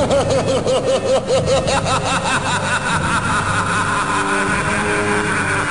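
Predator creature sound effect from the films: a rapid clicking, rattling warble whose pitch rises and falls several times a second for about two seconds, then settles into a steadier rumbling call with held tones.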